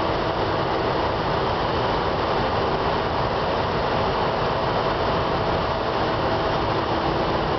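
Steady roar of a light-oil start-up burner firing inside a circulating fluidized bed boiler furnace, with a steady low hum running under it.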